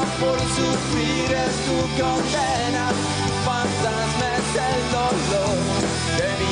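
Rock band playing live, with electric guitars, bass guitar and a drum kit, the music running loud and steady.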